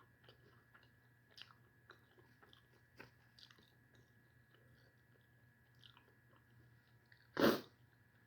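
Quiet eating: soft chewing of chicken pasta with small scattered mouth clicks, and one brief louder noisy sound about seven and a half seconds in.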